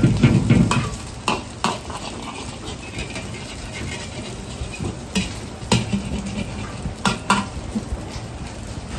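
Noodles shallow-frying in hot oil in an iron wok, sizzling steadily, with a metal ladle clinking against the wok several times. The sizzle surges louder in the first second as the wok is swirled.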